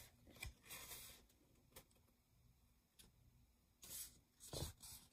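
Faint handling of a paper scroll: a few light paper clicks, then two brief rustles about four seconds in, with near silence between.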